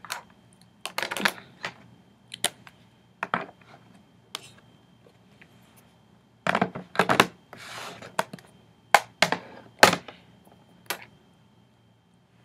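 Small makeup items, such as palettes and compacts, being handled and set down: irregular sharp clicks and knocks, with a brief rustle about eight seconds in.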